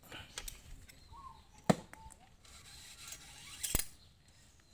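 Bicycle brake cable being pulled out of its housing and handled, a few sharp metallic clicks and light rattles. The loudest click comes about a second and a half in, and a short rasping burst just before the end.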